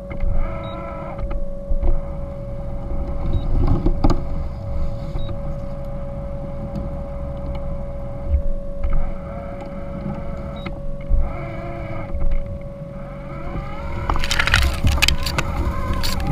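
Worx Landroid robotic lawnmower running: a steady motor hum with the rumble of its wheels over grass. Near the end, a burst of crackling and scraping as branches and leaves rub against the mower while it pushes into a hedge.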